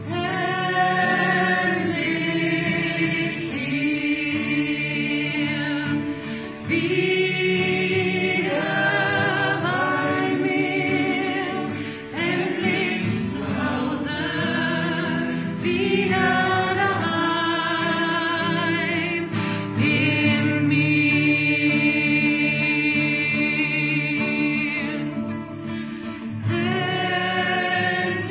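A group of voices singing together in sustained chords, in long held phrases of several seconds with short breaks between them.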